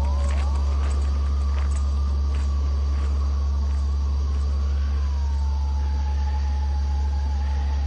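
A loud, steady low drone with a thin whistling tone above it. The tone slides up at the start, holds, and slides back down about five seconds in. A few faint clicks come in the first couple of seconds.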